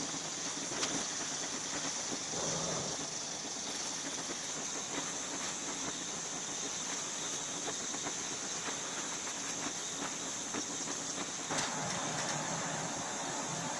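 Gas welding torch flame hissing steadily against the steel hairpin, growing louder and fuller about three-quarters of the way through.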